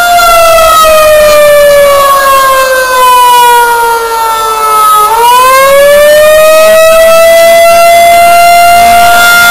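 Outdoor warning siren sounding during its monthly test, very loud. Its pitch holds, then falls slowly over about five seconds and rises back to hold steady again, in a wailing signal.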